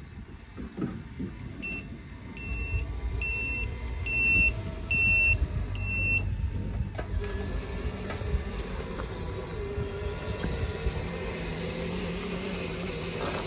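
Tamiya 1/14 Mercedes-Benz RC dump truck making warning beeps: six short high beeps about two-thirds of a second apart over a low engine rumble. From about seven seconds in they give way to a steady hum.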